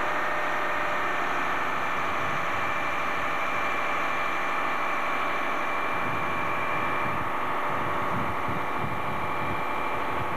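Fire appliance engine running steadily to drive its turntable ladder, with a steady whine over the engine note and a rougher low rumble coming in about six seconds in.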